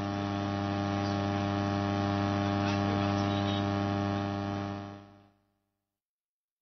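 Electrical mains hum from the stage sound system, a steady buzzing drone made of several even tones. It fades out and cuts to dead silence about five seconds in.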